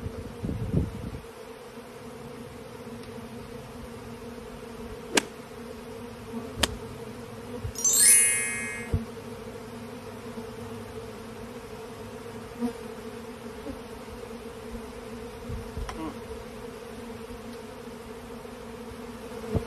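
A swarm of honey bees buzzing in a steady hum, drawn to their queen. Two sharp clicks come about five and six and a half seconds in, and a brief shrill high-pitched sound, the loudest thing here, comes about eight seconds in.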